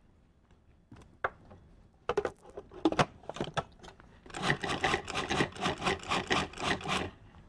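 A utensil knocking and then scraping quickly through thick pesto in a bowl, about three seconds of rapid, rhythmic strokes working in added olive oil.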